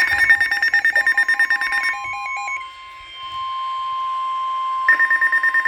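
Weather alert receivers alarming at once: rapid pulsed beeping alarms, with a steady NOAA Weather Radio warning alarm tone (about 1 kHz) starting about a second in and held. The first beeping stops about two seconds in, and another beeping alarm starts near the end. The alarms herald a severe thunderstorm warning broadcast.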